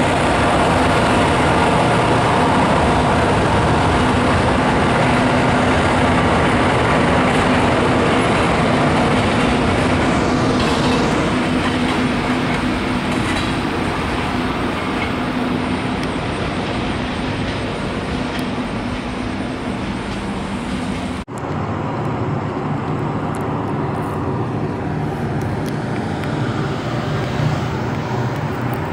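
Maryland Midland freight train running by: a steady rumble of diesel engines and steel wheels on rail, with a few held tones through it. About 21 seconds in, the sound cuts out for an instant and comes back quieter and lower.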